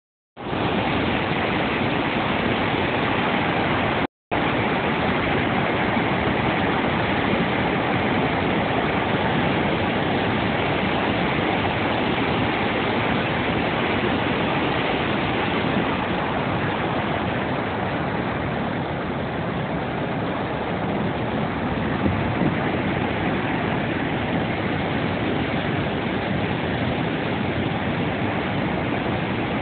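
Water released through a gate in a masonry dam, rushing out and crashing into the river below in a loud, steady roar. The sound cuts out for a moment about four seconds in.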